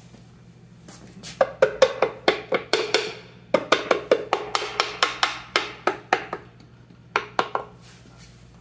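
Soft-faced mallet tapping the aluminium timing cover of a Jaguar XK engine down into place over the crankshaft seal. The taps come in two quick runs of about five light knocks a second, each with a short ring, then three more near the end.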